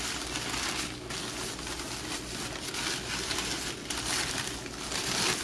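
White packing paper crinkling and rustling as hands unwrap and crumple it, a continuous irregular crackle.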